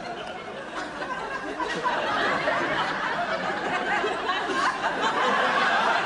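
Studio audience laughing, a sustained wave of mixed laughter and chuckling from many people.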